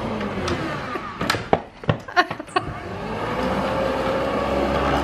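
Corded electric lawnmower motor running, then winding down about a second in. A few sharp clicks and knocks follow, then the motor starts again with a rising whine and runs steadily.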